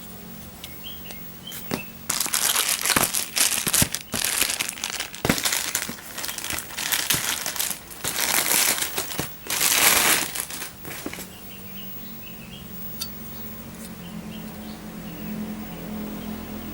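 Packaging crinkling and rustling as it is handled and unwrapped, in irregular loud bursts for about nine seconds, then settling to a faint low hum with a few small ticks.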